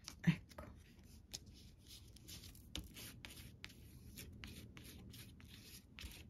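Plastic stick rubbed over paper in short, repeated strokes, about three a second, pressing a freshly glued paper cut-out flat onto the page. Faint and scratchy.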